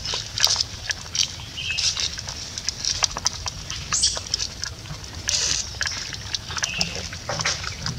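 Scattered short, high animal chirps and squeaks with small clicks, over a steady low rumble of outdoor background noise.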